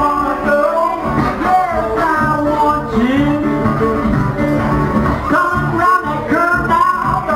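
Live acoustic blues: a metal-bodied National resonator guitar played with a man singing over it.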